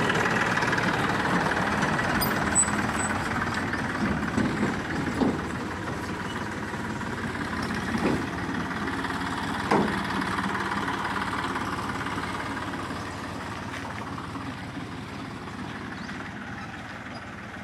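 Tractor engine running as the tractor pulls away towing a trailer, the sound fading steadily as it moves off. A few short knocks come around the middle.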